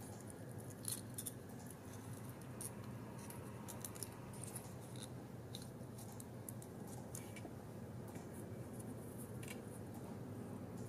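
Small cardstock pieces of a paper toy toilet handled and fitted together by fingers: light, scattered clicks and crinkles of stiff paper, over a steady low hum.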